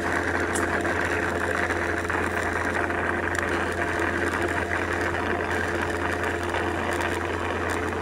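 XWOW R2 robot vacuum-mop docking station running as it moistens the mop: a loud, steady motor whir with a constant low hum.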